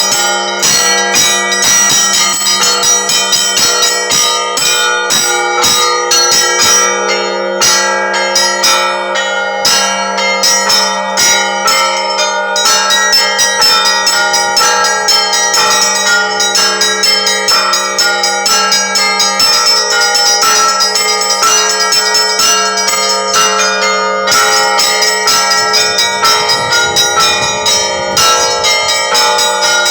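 Russian Orthodox church bells ringing a full peal: several bells struck in quick succession, their tones ringing on over one another without pause.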